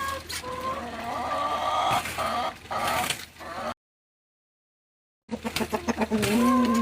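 Backyard hens clucking with low, wavering calls, mixed with scattered sharp ticks. The sound drops out completely for about a second and a half just past the middle, then the clucking resumes.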